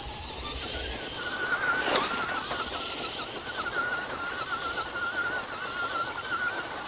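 RC car's electric motor whining at a high, wavering pitch that shifts with the throttle, as the car spins its wheels in one spot on grass. A single sharp knock about two seconds in.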